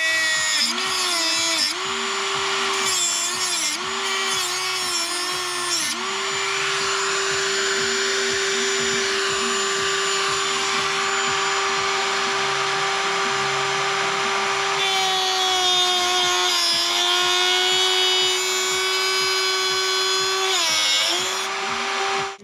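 Handheld electric power tool running at high speed with a steady whine, its pitch sagging several times as it bears down on the work, with a gritty hiss through the middle of the run.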